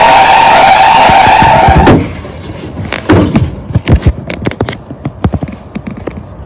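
Loud tire-screech sound effect that cuts off abruptly about two seconds in, followed by a scatter of clattering knocks and thuds.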